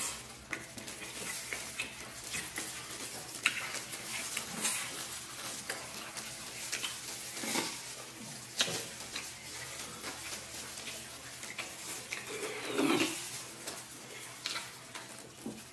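Close-up eating sounds: two people chewing and gnawing meat off stewed beef ribs, with wet smacking and sucking, irregular and continuous, and a louder bout about three-quarters of the way through.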